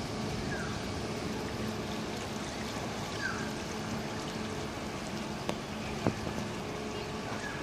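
A steady low engine hum over a constant noisy wash, with a few faint clicks and two short high chirps.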